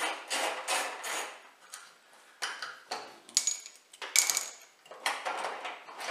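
Hand tool with a 7 mm socket working at the screws under a washing machine's base: a quick run of short ratcheting strokes, about three a second, for the first second or so. Then come two bright metallic clinks of small steel parts, the loudest sounds, and some lighter scraping and handling.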